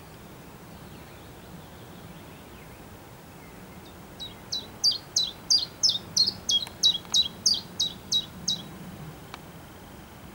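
A leaf warbler singing one phrase of about a dozen quick, high notes, evenly spaced at about three a second. Each note slurs downward. The phrase starts about four seconds in and lasts about four seconds.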